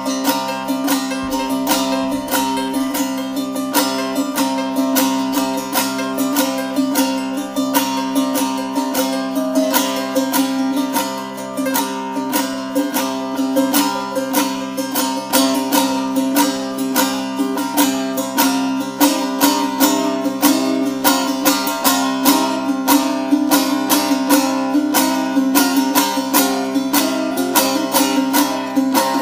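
Two bağlamas (long-necked Turkish saz lutes) playing an instrumental improvisation in Alevi folk style: quick strummed and picked notes over a steady drone of open strings. The playing grows denser and a little louder about halfway through.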